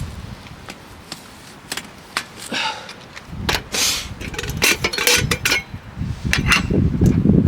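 A series of light clicks and knocks, like small objects or gear being handled, thickest in the middle, with a low rumble rising toward the end.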